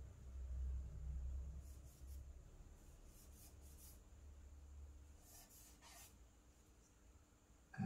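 Charcoal stick scratching on drawing paper in a few short strokes, over a low rumble that fades out after about five seconds.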